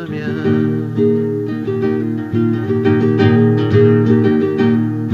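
Acoustic guitar strummed in repeated chords with a steady rhythm: an instrumental break between sung verses.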